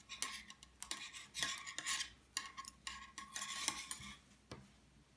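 Metal double-pointed knitting needles clicking and scraping against each other as stitches are knitted in the round, in irregular light clicks that stop a little after four seconds in.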